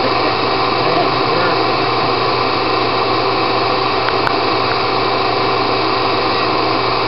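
Bee vacuum running steadily: a loud even rush of air with a constant motor whine as the hose sucks honey bees off the exposed comb.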